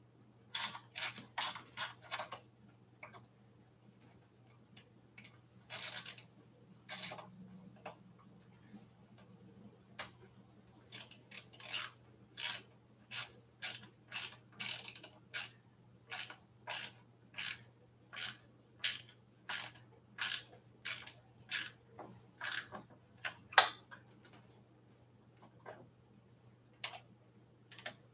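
Socket ratchet wrench clicking in short strokes as bolts at an e-bike's handlebar are tightened. The strokes come in a few clusters at first, then about two a second for much of the middle, and thin out near the end.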